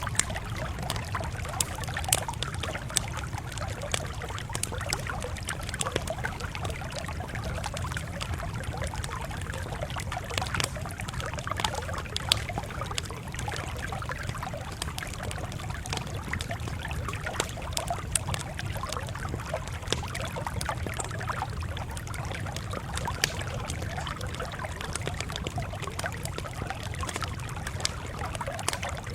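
Campfire crackling: frequent sharp pops and snaps scattered over a steady low rushing noise.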